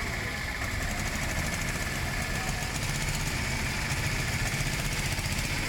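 Small engine of a three-wheeled cargo auto-rickshaw running steadily at low speed, a low even throb.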